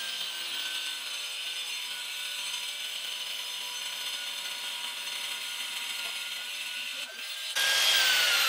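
Handheld electric stone-cutting saw (marble cutter) grinding through a stone slab, cooled with poured water: a steady high whine. About seven and a half seconds in it comes out of the cut and runs louder, its pitch slowly falling.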